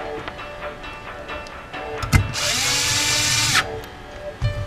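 Compact cordless drill-driver spinning up with a rising whine and running for about a second, driving a fine-thread machine screw that fastens a factory mounting bracket to a car radio's metal case. A sharp click comes just before it starts.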